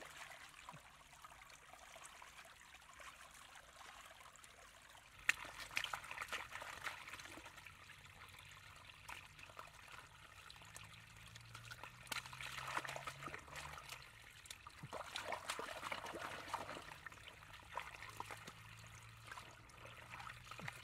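Muddy runoff water trickling and pouring into a woven basket fish trap in a narrow ditch, with hands splashing in the water at the basket's mouth. It grows louder about a quarter of the way in, with louder spells of splashing after the middle.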